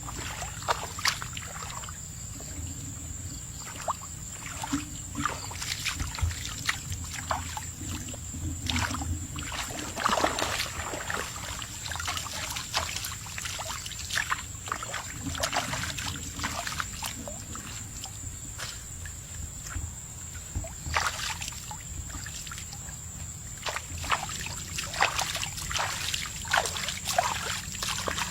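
Irregular splashing and sloshing of shallow muddy water as someone works by hand, with a steady thin high tone behind it.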